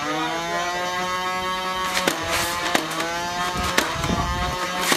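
Motorized flywheel Nerf blaster whining as it spins up, rising in pitch and then holding a steady whine, with four sharp clicks of darts being fired that briefly dip the whine.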